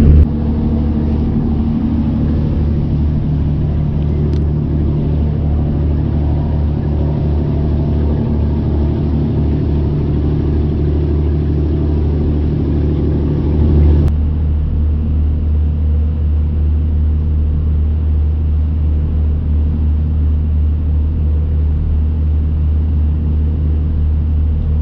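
Riverboat's diesel engine running steadily, a low drone heard on board, which turns duller about fourteen seconds in.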